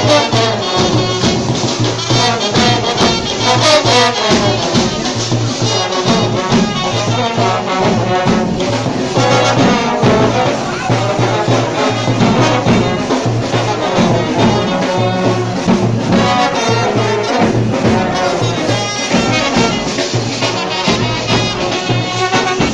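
Lively dance music with brass horns over a steady beat.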